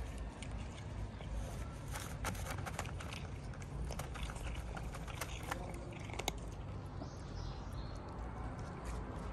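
Tabby cat chewing dry kibble: irregular crisp crunches and clicks, fewer near the end, over a steady low rumble.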